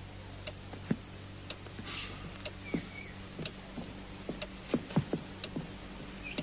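A clock ticking steadily about once a second, with a few soft low knocks in between.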